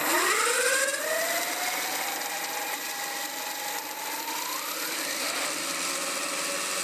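Small electric motor spinning a 3D-printed propeller through a 1:1 printed gear drive, run up in air on the bench. Its whine rises in pitch as it spins up, holds steady, then climbs again about four seconds in as the throttle is opened to about half.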